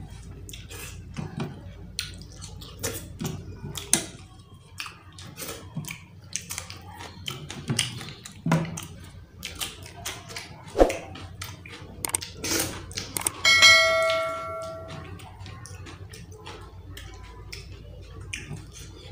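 Close-up eating sounds from a person eating curry and rice by hand: wet chewing, lip smacks and clicks, with fingers working food on the plate. About thirteen seconds in, a clear ringing tone like a struck bell sounds for about a second and a half and fades.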